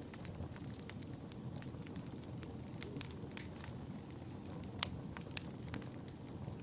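Wood fire burning in a fireplace: a steady low rumble of flames with irregular crackles and pops, one sharper pop about five seconds in.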